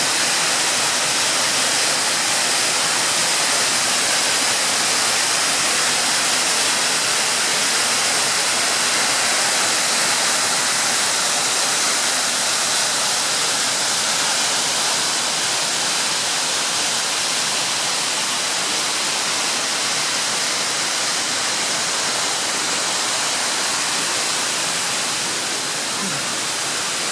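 Mumlava waterfall's water rushing over the rocks in a steady, loud hiss that eases a little near the end.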